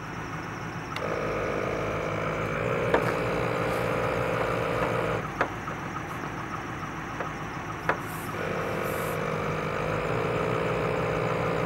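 ARB twin 12 V air compressor running, reinflating a truck tire through a coiled air hose and hand inflator: a steady drone with a higher whine that drops out for about three seconds in the middle and then returns, with a few sharp clicks.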